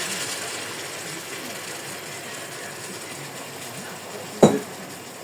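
Chicken pieces sizzling as they brown in a pot, a steady hiss. One sharp knock comes about four and a half seconds in.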